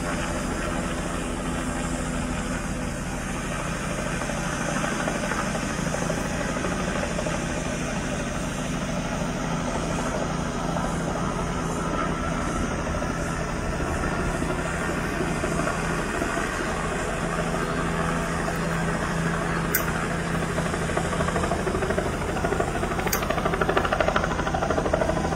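Helicopter flying with its rotor and engine running, a steady rapid rotor chop that holds at an even level.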